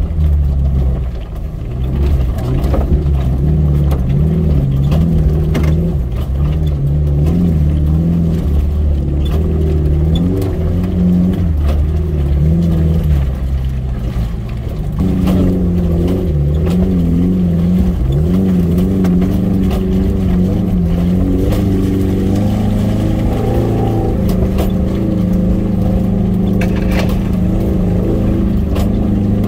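Off-road vehicle's engine running under changing throttle while driving a rough track, its pitch rising and falling again and again over a heavy low rumble, steadier near the end.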